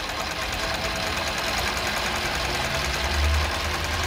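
Jack JK-20U63 industrial zigzag sewing machine running at speed, sewing a wide zigzag stitch: a steady, rapid, even clatter of needle strokes.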